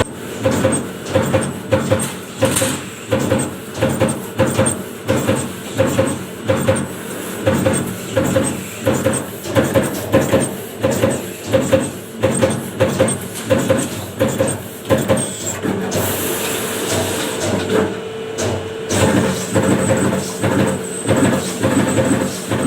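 CNC punch press punching holes in sheet metal, a steady rapid train of punch strokes about two a second. About sixteen seconds in the strokes stop for a few seconds, leaving a steady hum and a hiss, then start again.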